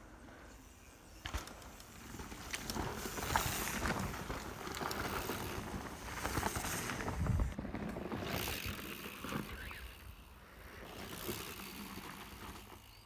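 Mountain bikes riding past on a dirt trail: knobby tyres rolling and scrubbing through loose soil with bike rattle. The sound builds as the first rider comes through and swells again as a second rider passes.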